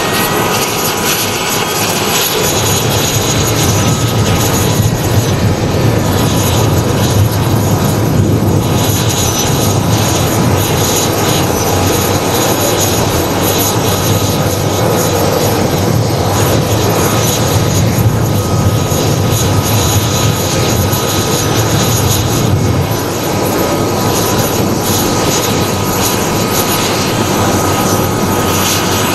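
CH-47JA Chinook tandem-rotor helicopter on the ground with its twin turboshaft engines and rotors running, a steady turbine whine over rotor noise. About 23 s in, a low hum drops away and the sound eases slightly.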